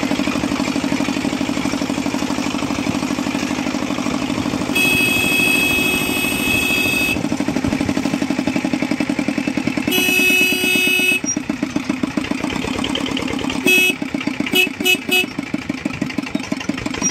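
Engine of a passenger van running steadily with a fast, even chug. A vehicle horn blares for about two seconds, again for about a second a little later, then gives a short toot and three quick beeps near the end.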